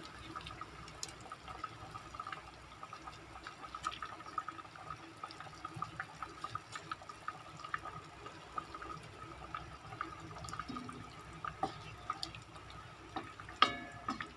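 Beef broth simmering in a pot, with a steady scatter of small bubbling pops. Near the end a wooden spatula stirs and knocks once against the pot with a brief ring.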